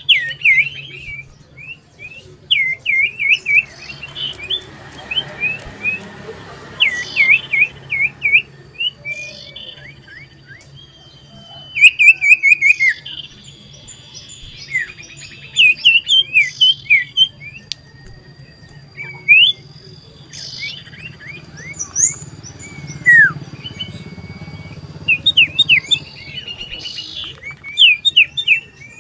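Common iora (cipoh) singing loudly: bursts of quick, sharply sweeping whistled notes and short rapid runs, repeated with brief pauses.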